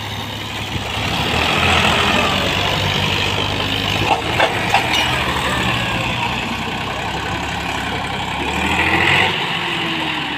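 Tractor diesel engines running hard under load while towing a mired tractor and its loaded trolley out of mud. The engine sound swells louder about two seconds in and again near the end, with three sharp knocks about four to five seconds in.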